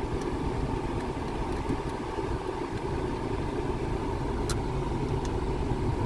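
Car engine idling with the air-conditioning fan blowing, heard inside the cabin as a steady hum and rush. A faint click about four and a half seconds in.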